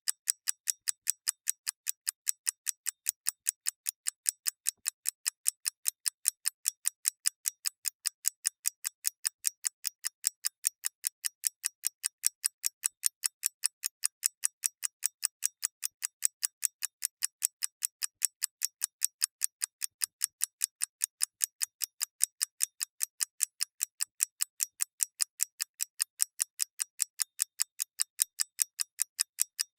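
Clock ticking evenly and fairly fast, about four crisp ticks a second, with stronger and weaker beats alternating in a tick-tock pattern.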